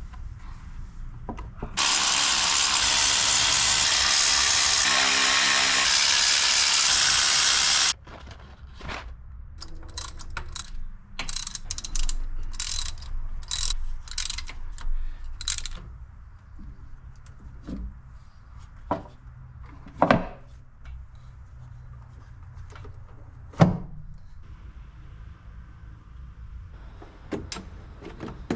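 A socket ratchet clicking in short runs during engine work, with scattered knocks of tools on metal. About two seconds in, a loud steady hiss starts and cuts off suddenly about six seconds later.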